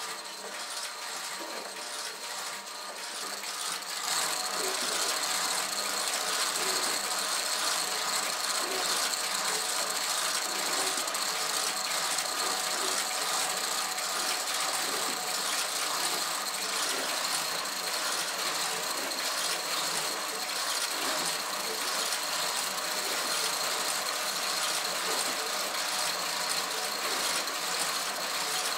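Kinetic sculpture machine running: a dense, continuous clatter of gears and ratchet-like mechanisms with a steady high whine. It grows louder about four seconds in.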